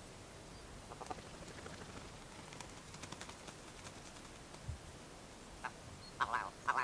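Faint rustling and soft ticks, a single dull thump about two-thirds of the way through, then a few short, nasal, quack-like animal calls near the end.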